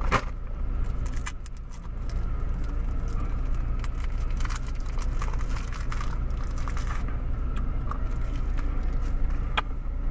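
A plastic lollipop wrapper crinkles and crackles in short bursts as a Blow Pop is unwrapped, with a sharp crackle at the start and a few more scattered through. Underneath runs the steady low hum of a car cabin with the engine running.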